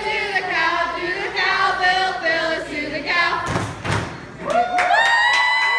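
A group of campers chanting together in a sing-song unison. About three and a half seconds in there is a heavy thump, then a long, high-pitched vocal cry rises and is held steady near the end.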